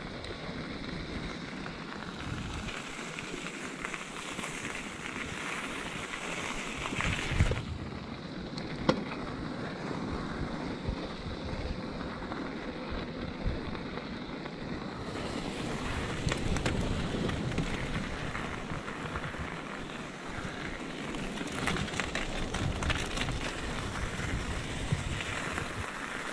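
Riding noise of a Scott E-Genius electric mountain bike on a wet gravel and slush path: a steady rush of tyre noise and wind on the microphone. Two sharp knocks come about a third of the way in.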